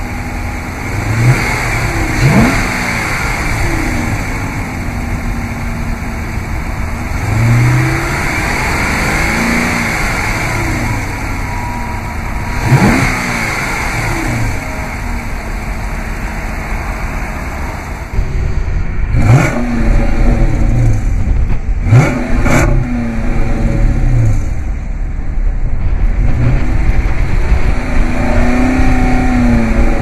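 Dodge Charger Daytona's 5.7-litre HEMI V8 being free-revved at standstill: repeated blips of the throttle, each rising in pitch and falling back to idle. About two-thirds of the way through it becomes louder and fuller in the low end, heard from the tailpipe, with a few short, sharp blips close together.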